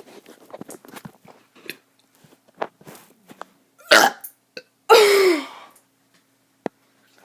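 A child's loud burp about five seconds in, lasting about half a second and dropping in pitch. It comes a second after a short, sharp throaty sound and follows a run of small mouth clicks.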